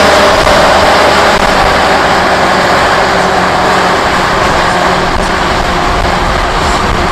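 Diesel engine of a 1983 International S-Line SF2670 truck running hard under load while pulling the sled on a pull track, a steady heavy drone that eases slowly in loudness.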